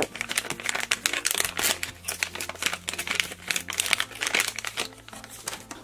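Shiny foil blind-bag wrapper of a Funko Pint Size Heroes figure being crinkled and pulled open by hand: a dense, rapid run of crackles that thins out near the end.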